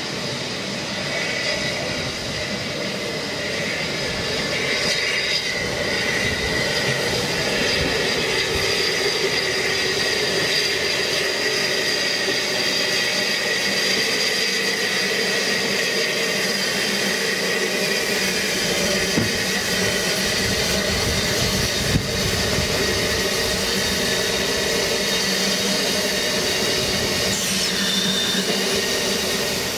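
Narrow-gauge train of coaches and a steam tank locomotive rolling slowly past, its wheels squealing steadily against the rails, with a couple of sharp clicks past the middle.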